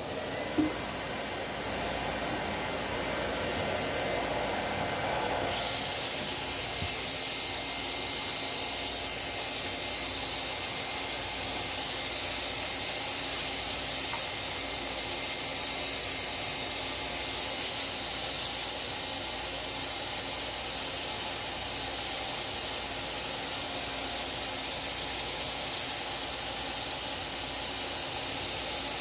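Vacuum cleaner with a brush nozzle running steadily, sucking dust and lint out of the open top of a sewing machine: a steady rush of air with a thin high whine over it. The hiss brightens about five seconds in.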